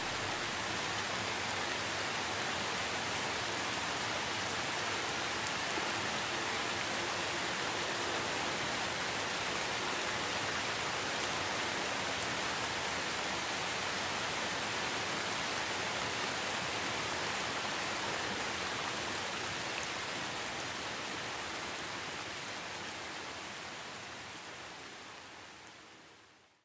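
Steady hiss of lake water washing around a camera bobbing at the waterline. It fades away over the last few seconds.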